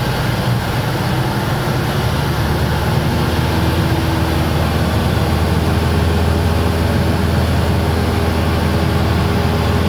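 Piston engine and propeller of a small single-engine aircraft, heard from inside the cabin: a loud, steady drone with a strong low hum. Its note shifts and it grows slightly louder about three seconds in.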